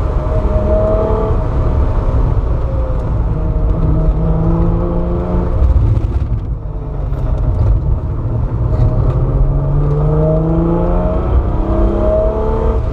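Alfa Romeo SZ's 3.0-litre Busso V6 heard from inside the cabin under hard driving: revs climb, drop away briefly about six seconds in as the driver lifts, then climb steadily again, over a constant road rumble.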